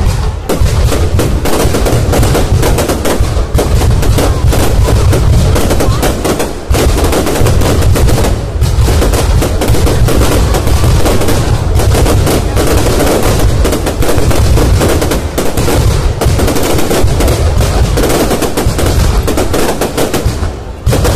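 Fireworks bursting in a dense, near-continuous barrage of rapid bangs, with a few brief lulls, one about six seconds in and another near the end.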